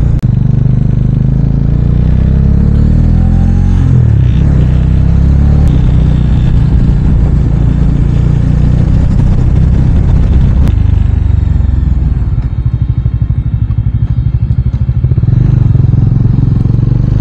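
Motorcycle engine running under way. Its revs rise about three seconds in, then ease off for a few seconds about twelve seconds in before picking up again.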